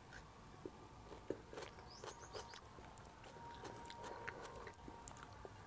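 Faint close-up chewing of a mouthful of rice and sliced vinegar onion eaten by hand: irregular soft crunches and wet mouth clicks.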